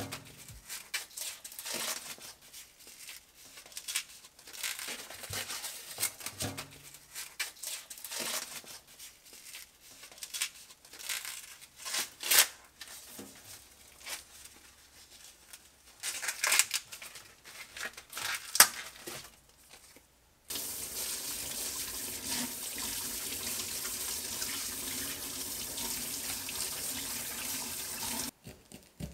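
Corn husks being torn and stripped from ears of super-sweet corn: a run of irregular rustling rips with a few sharp, louder tears. About twenty seconds in, a kitchen faucet runs steadily as a shucked cob is rinsed under it, stopping near the end.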